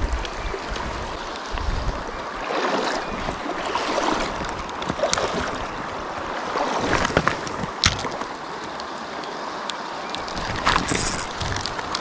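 Steady rush of flowing river water, with a few sharp clicks and taps and a short hiss near the end.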